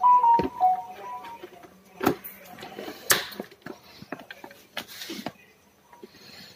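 Hands handling a dishwasher's wiring harness and connectors: scattered clicks and short rustles of wires being moved and taped. A short run of high pitched tones sounds in the first second and a half.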